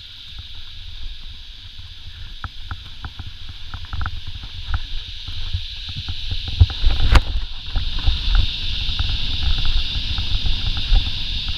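Mountain bike riding over a dry, rocky dirt trail, recorded from a camera on the bike or rider: wind rumble on the microphone, tyres rolling over dirt and stones, and scattered rattles and clicks from the bike, with one sharp knock about seven seconds in. A steady high hiss runs underneath.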